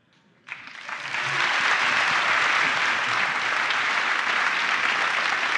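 Audience applause, starting about half a second in and going on steadily.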